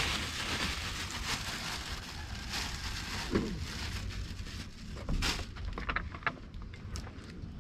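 A plastic bag rustles for about three seconds. Then come a few light clicks and rustles as green chillies are handled on a glass plate.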